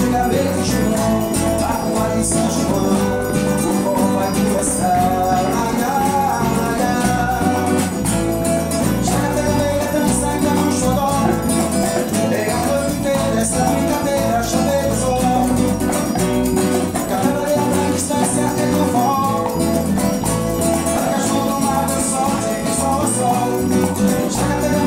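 Forró song played by a small band: a man singing the verse over strummed acoustic guitar, electric bass, a zabumba bass drum, drum kit, bongos and hand percussion keeping a steady dance beat.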